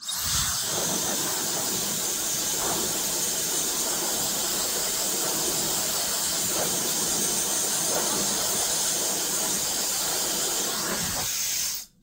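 High-speed mini hair dryer blowing: a steady rush of air with a high-pitched motor whine. It switches on at the start and cuts off just before the end, after about twelve seconds.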